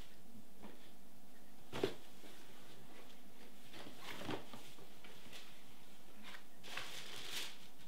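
Cardboard shoebox being handled and opened: scattered light knocks and rustles, the sharpest knock about two seconds in, with the lid lifting and paper rustling near the end.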